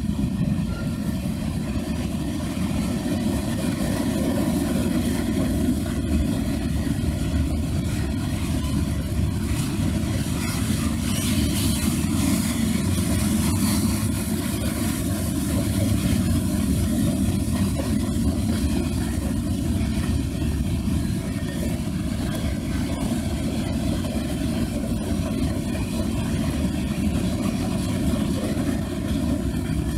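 Freight train cars, mostly covered hoppers, rolling past: a steady low rumble of steel wheels on rail. It is heard through a heavy wind-reduction filter that muffles and distorts it.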